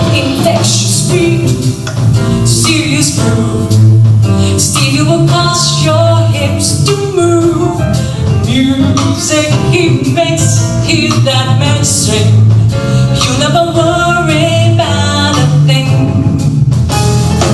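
Woman singing into a microphone with a live jazz band, the electric bass guitar strong underneath.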